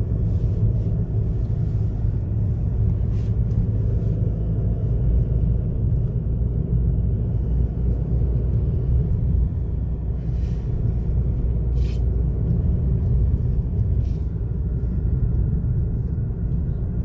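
Steady low rumble of road and engine noise inside the cabin of a moving Mahindra XUV300, with a few faint clicks.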